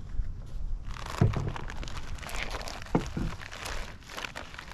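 Plastic bag crinkling and rustling as food is unpacked from a cooler bag, with two knocks of items set down on a wooden picnic table, about a second in and again about two seconds later.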